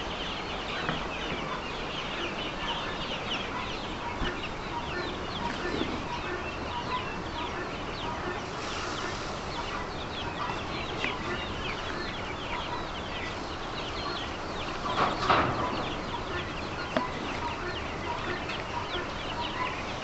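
A pen full of young poultry chicks peeping continuously, many short high falling cheeps at once. There is a brief louder rustle about fifteen seconds in.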